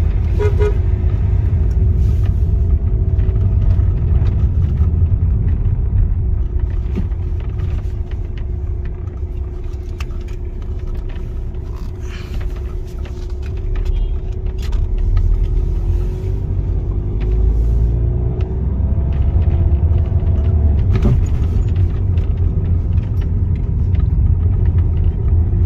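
Skoda Superb being driven, heard from inside the cabin: a steady low rumble of engine and road noise with a faint engine hum. About three-quarters of the way through, the engine note rises in pitch as the car accelerates.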